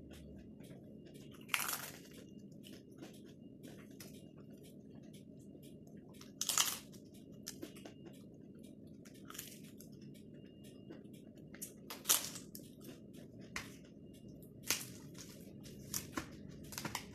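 Someone biting and chewing crispy zaatar manoushe flatbread. There are several loud crunches a few seconds apart, with smaller crackles between them, over a steady low background hum.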